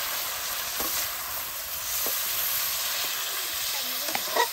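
Chicken frying in a pan, a steady sizzle with a few light clicks.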